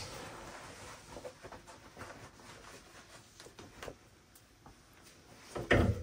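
Faint rustling of clothing being handled and rummaged through, with a few light knocks and a louder thump near the end.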